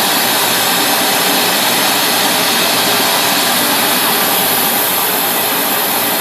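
Oxy-acetylene torch with a #10 rosebud heating tip burning with a loud, steady roar.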